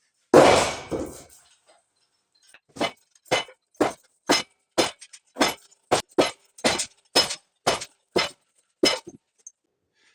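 Hammer striking steel. One heavy ringing blow, then after a pause a run of about thirteen lighter strikes, roughly two a second.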